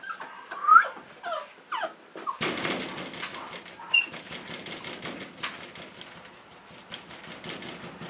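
Cavalier King Charles Spaniel puppies whimpering and yipping in short rising squeals, loudest just under a second in. From about two and a half seconds a rustling scuffle sets in as they tussle, with one more brief squeak a little later.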